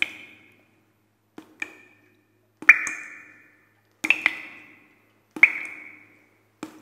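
Sound-effect pings over an animated title card: a sharp click followed by a short ringing tone that fades within about half a second. These repeat about every second and a half, a few of them doubled.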